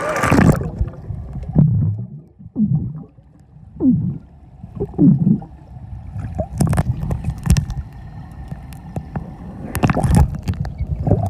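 A splash as the microphone plunges into a swimming pool. Then the muffled underwater sound of air bubbles gurgling and water moving, with a few sharp clicks.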